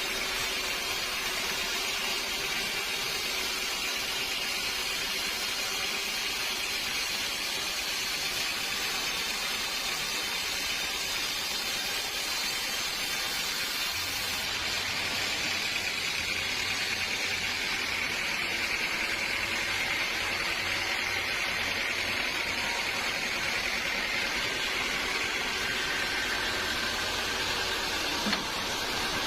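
Sawmill saw running with a steady noise, strongest high up; a low hum joins about halfway through.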